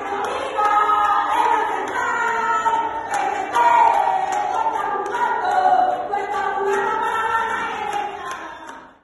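A group of voices singing together, with several pitched lines moving in step; the singing cuts off abruptly near the end.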